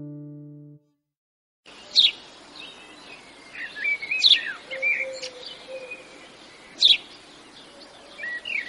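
A guitar chord rings out and fades away. After a moment of silence, birds sing: a few sharp chirps and warbling calls over a steady hiss.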